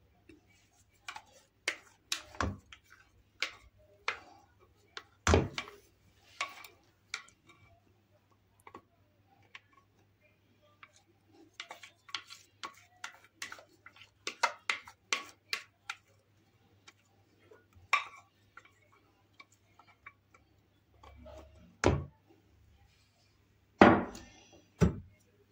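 Scattered clicks and light taps of a glass bowl and plastic spatula against a metal bundt cake pan as thick batter is poured and scraped in, with a few louder knocks near the end as the spatula works around the pan. A faint low hum lies underneath.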